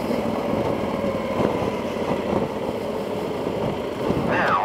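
Yamaha XT1200Z Super Tenere's parallel-twin engine running steadily while the bike cruises along the road, heard through a microphone inside the rider's helmet.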